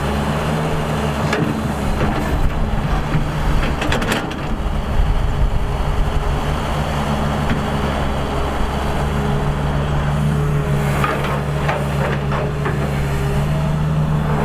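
Excavator's diesel engine running steadily, with scattered sharp knocks and clanks, a cluster about four seconds in and more near the end.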